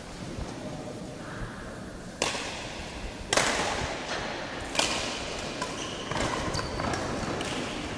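Badminton racquets hitting a shuttlecock back and forth in a singles rally: sharp hits a second or so apart, the loudest about two, three and a half and five seconds in, each echoing in a large hall, with lighter knocks from play after them.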